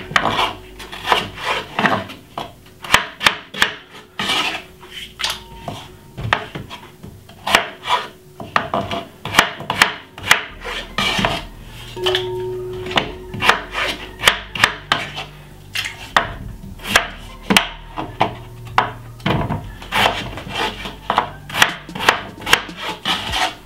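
Chef's knife cutting raw potato into small pieces on a wooden chopping board: a quick, irregular run of knocks as the blade hits the board, broken by short pauses.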